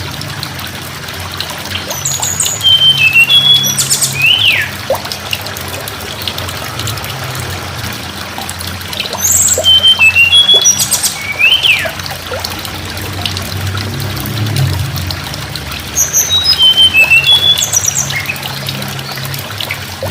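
Tledekan gunung bird singing the same short phrase three times, about seven seconds apart. Each phrase is a run of high chirps ending in a quick downward-sliding note. Under the song there is a steady trickle of water and a low hum.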